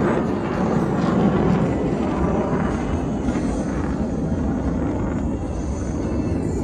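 Jet noise from Blue Angels F/A-18 Super Hornets in flight: a steady, dense rumble that eases slightly toward the end.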